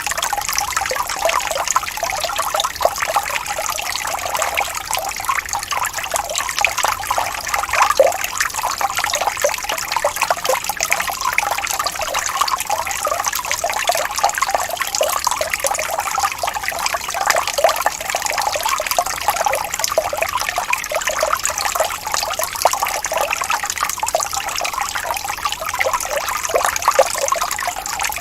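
A gently rippling stream of running water: a steady trickle with many quick little splashes.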